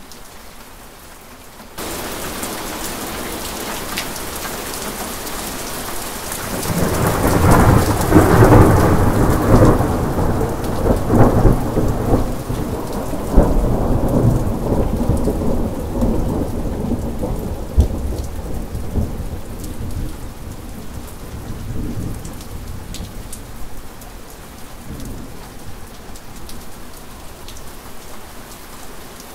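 Steady rain, which grows suddenly louder about two seconds in. A long peal of thunder builds from about six seconds in, rumbles loudest with several sharp cracks over the next several seconds, then rolls away slowly while the rain keeps falling.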